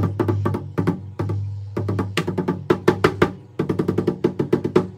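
Fingers and hand tapping rapid flurries on the coated head of a Gretsch Renown bass drum, with brief pauses between flurries. The drum's low tone rings on under the taps.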